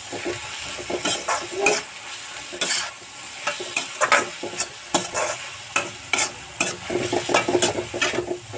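A spatula stirring and scraping spiced mixed vegetables around a metal kadhai in irregular strokes, with the vegetables frying over the gas flame.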